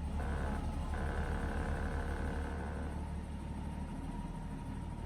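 1989 BMW E30 325i's 2.5-litre straight-six idling steadily just after a cold start, a low drone that eases slightly after about three seconds.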